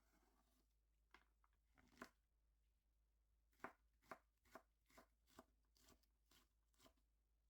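Knife chopping on a cutting board, quietly: a couple of single strokes, then a steady run of about eight chops at roughly two to three a second.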